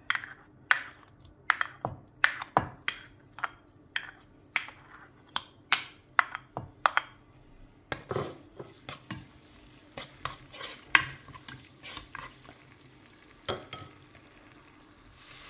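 A spoon knocks and scrapes against a ceramic bowl and the rim of a stone-coated pot, a long run of sharp taps about twice a second, as grated garlic is tipped into olive oil and spread around with the spoon. Near the end a faint sizzle sets in as the oil heats around the garlic.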